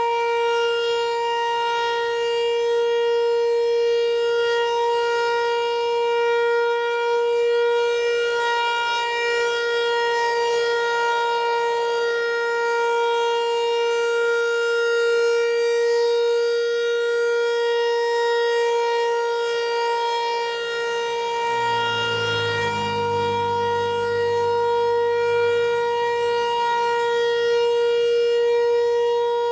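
Federal Signal Equinox outdoor warning siren sounding a steady alert during a test: one held tone with no rise or fall in pitch, swelling and fading slightly in loudness. A low rumble joins about two-thirds of the way through.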